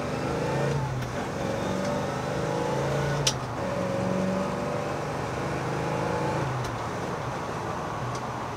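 Engine of a 1965 Chevrolet Malibu SS accelerating hard, heard from inside the cabin. Its pitch climbs and steps back down as the Muncie four-speed is shifted through the gears. A sharp click comes about three seconds in.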